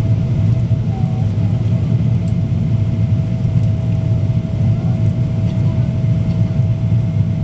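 Steady low rumble of engine and airflow noise inside a Boeing 777-200ER cabin in flight on descent, with a faint steady whine above it.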